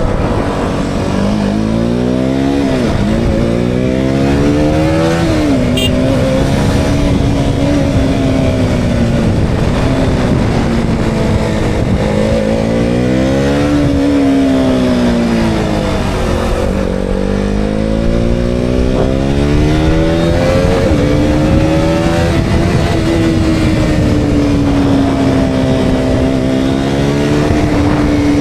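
KTM Duke 200's single-cylinder engine revving up and easing off again and again, its pitch climbing and dropping with throttle and gear changes, over wind rush on a helmet-mounted microphone.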